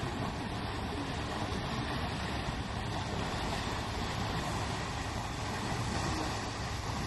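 Steady rushing noise that stays even throughout, with no distinct events.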